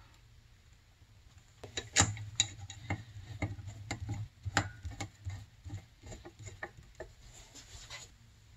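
Irregular small clicks and taps of a screwdriver and metal parts as the lock-washered float bowl screws of a snowmobile carburetor are driven in. The clicking starts about two seconds in, with the loudest tap right at its start, and stops shortly before the end.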